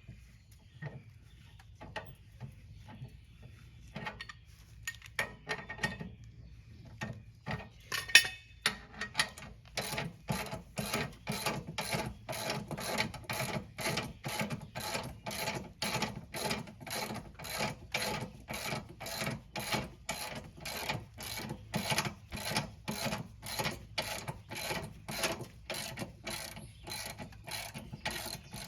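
Car jack being pumped to lift the car: a few scattered clicks and one sharp click, then steady, even mechanical strokes at about two a second.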